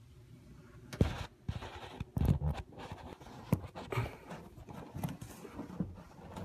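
Handling noise of a phone being pushed into a cramped cavity behind a panel: it rubs and scrapes against the surfaces, with irregular sharp knocks starting about a second in.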